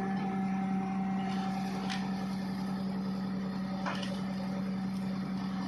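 Steady low hum of the machinery powering a hydraulic pile breaker, running without change, with two faint ticks about two and four seconds in.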